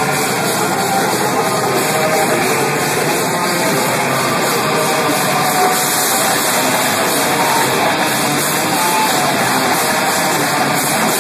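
Live rock band playing loud and without a break: electric guitars and a drum kit.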